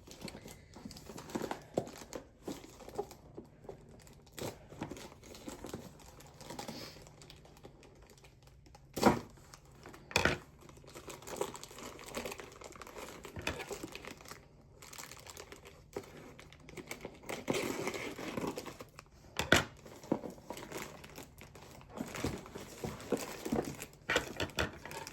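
Packaging crinkling and tearing as a parcel is unwrapped by hand, with irregular crackles and a few sharper knocks about 9, 10 and 19 seconds in.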